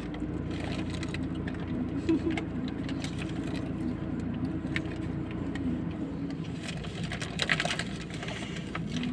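Steady low hum of a car idling, heard from inside the cabin, wavering slightly in pitch. A plastic waffle wrapper rustles briefly near the end.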